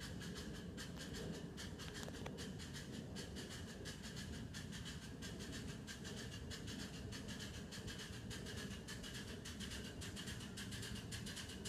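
Miniature ride-on railway train running along its track: a low steady rumble with a fast, even ticking.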